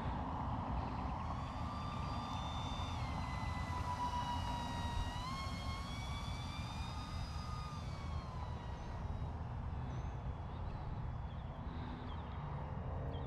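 Motor and propeller whine of a small sub-250 g RC flying wing flying past. The whine comes in about a second and a half in, dips in pitch, steps up about five seconds in, then slides down and fades by about nine seconds. A steady low rumble of wind on the microphone runs underneath.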